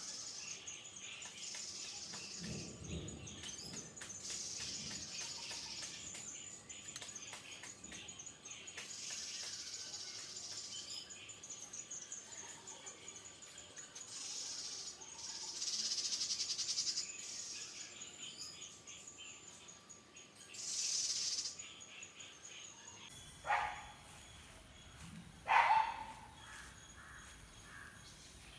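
Birds chirping and calling outdoors, with two short, louder calls that fall in pitch near the end.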